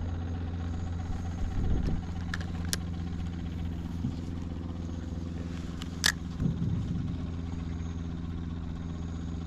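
A steady low engine drone runs throughout, with a few sharp clicks about two and a half seconds in and again at about six seconds.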